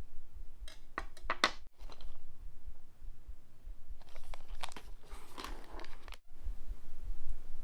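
Keyboard packaging and accessories being handled: two short spells of crinkling and rustling with a few sharp clicks, about a second in and again around four seconds in.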